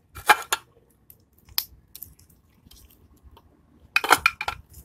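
Handling noise from a Honda C70 aluminium engine crankcase being turned over in gloved hands: a few sharp knocks and scrapes, with a denser cluster of clatter near the end.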